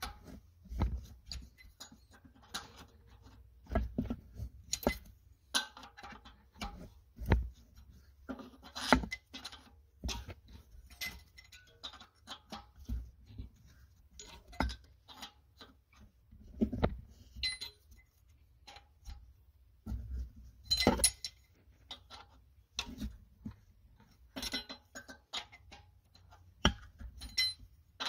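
Irregular metallic clinks and knocks of a wrench against the PCV valve and surrounding engine parts, with occasional dull thuds.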